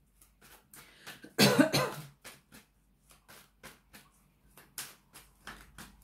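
A woman coughs once, about a second and a half in, the loudest sound here. Faint light clicks of tarot cards being handled run through the rest.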